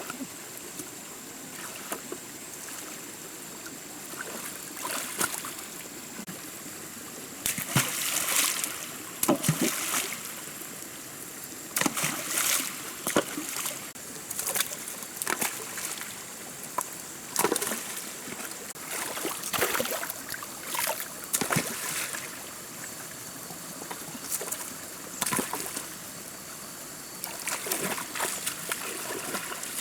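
Water splashing and sloshing in irregular short bursts, over a steady background hiss.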